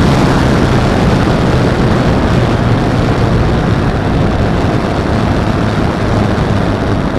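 Steady wind rush over an onboard camera on a 48-inch Extreme Flight Edge 540T RC plane, with a low propeller hum that fades as the plane comes in low to land on grass.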